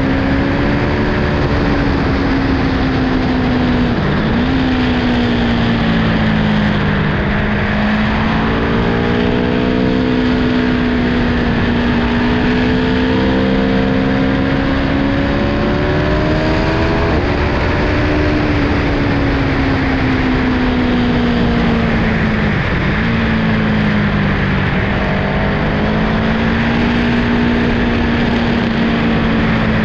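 Aprilia Tuono V4 1100 Factory's V4 engine pulling steadily at cruising revs, under a steady rushing noise. Engine speed dips sharply and recovers twice, and steps up once about halfway through.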